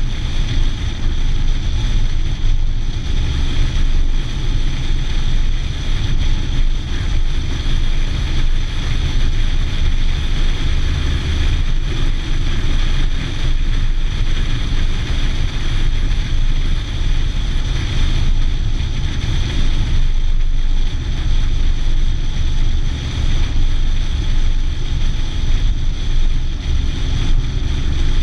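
Steady wind rushing over the microphone with a deep, continuous road and engine rumble from a Nissan 240SX driving at speed.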